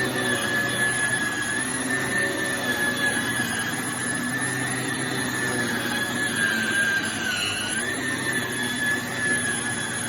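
Vax Air Lift 2 Pet upright vacuum cleaner running: a steady motor whine over a rushing airflow, the pitch dipping briefly about three-quarters of the way through.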